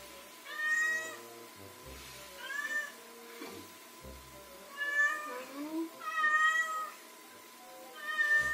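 Domestic cat meowing again and again, about five drawn-out meows a second or two apart: insistent calls for its owner's attention.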